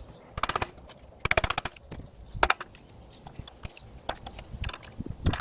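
Short bursts of rapid, sharp metal knocks and rattles: a tool chipping at the hard plastic insert lodged in the old ball-joint collar of an aluminum ATV strut arm, trying to break it out.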